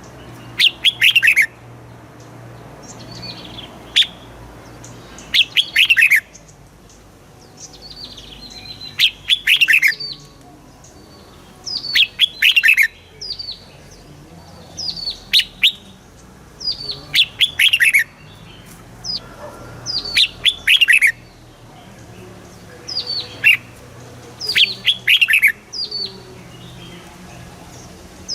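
Red-whiskered bulbul singing: short bright phrases of quick notes that fall in pitch, repeated every two to three seconds, with single chirps between them.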